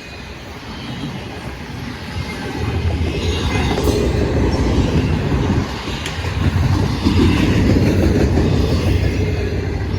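Intermodal freight train's cars rolling past, steel wheels clattering over the rail joints in a continuous rumble that grows louder about three seconds in.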